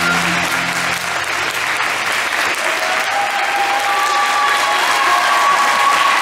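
Audience applauding at the end of a baton twirling routine, the routine's music stopping within the first second.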